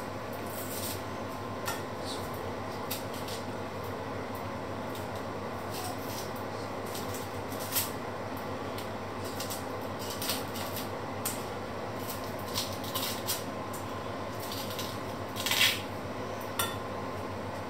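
Onions being peeled by hand with a small knife: scattered short scrapes and crackles of the blade and dry onion skin, with a longer, louder scrape near the end, over a steady background hum.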